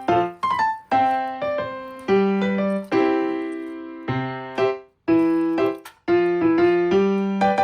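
Background music: a piano playing a simple, gently paced melody, notes struck and left to fade.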